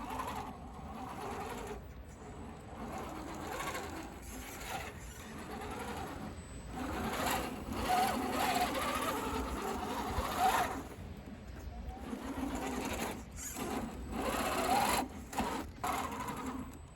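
Electric motor and gearbox of a radio-controlled scale crawler truck whirring as it drives, the pitch and loudness rising and falling with the throttle.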